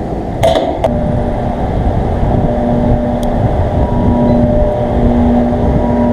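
Air-conditioner condensing unit running with a steady low hum and rumble, with two short clicks about half a second in.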